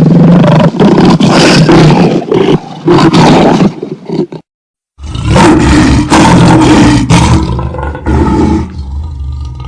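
Lion growling and roaring in a run of loud, rough bursts. The sound cuts to silence for about half a second, four and a half seconds in, then resumes with more bursts, and a low rumbling growl trails off near the end.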